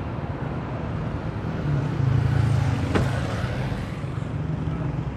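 Street traffic: a motor vehicle's engine rumble close by, growing louder from just under two seconds in and easing off about two seconds later, over a steady haze of road noise, with a single sharp click about three seconds in.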